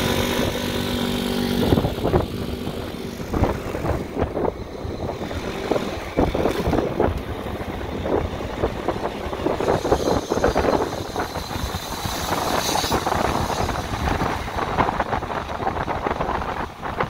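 Wind rushing and buffeting over the microphone of a moving electric motorcycle, mixed with tyre and road noise, with no engine note.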